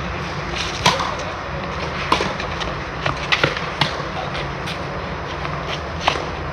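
Tennis rally on a clay court: rackets striking the ball and the ball bouncing, heard as sharp, irregular pops about once a second over a steady low hum.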